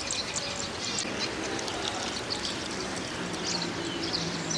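Small birds chirping and twittering in many short, quick calls over a steady outdoor background. A low steady hum joins about three seconds in.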